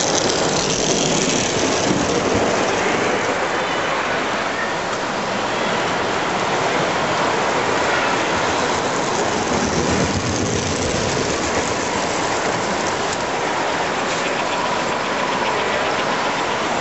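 Standard Gauge tinplate toy trains running on three-rail metal track: a steady rumble and clatter of wheels and electric motors.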